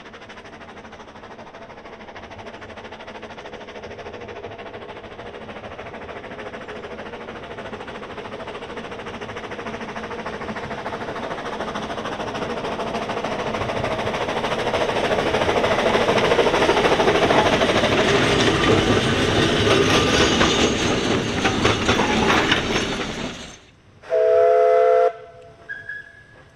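Narrow-gauge steam locomotive, the Ffestiniog Railway's George England 0-4-0 saddle tank and tender 'Prince', running with its train and growing steadily louder as it approaches and passes close by. After a sudden cut comes a short steam whistle blast of about a second, a chord of two tones, then a brief higher toot.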